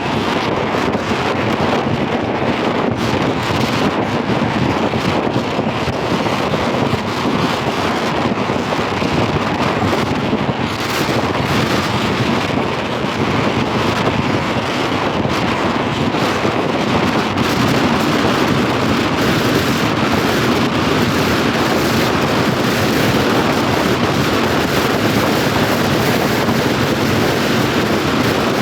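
Steady, loud wind rushing over the microphone, mixed with vehicle and traffic noise, getting a little brighter and hissier about a third of the way in.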